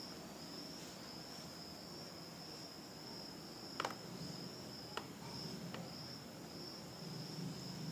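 A cricket trilling steadily in one high, thin note, with two faint clicks, about four and five seconds in.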